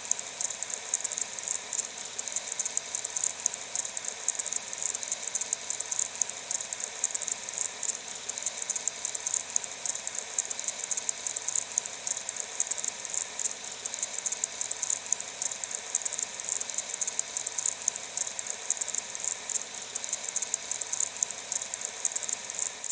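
Water running steadily from an outdoor faucet and hose: an even hiss with a dense fine crackle of spatter.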